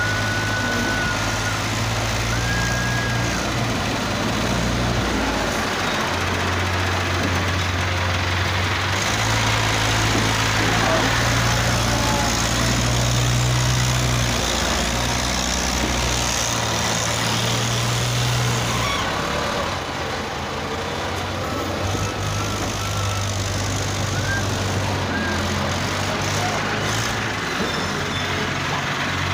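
Diesel tractor engines running under load while a tractor-mounted front loader works. The engine note steps up and down several times as the loader lifts and dumps soil into a trolley.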